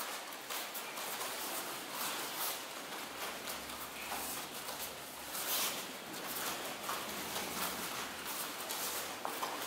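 Bare feet stepping and stamping on training mats during taekwondo forms, with uniform fabric rustling: a run of irregular short thumps and slaps.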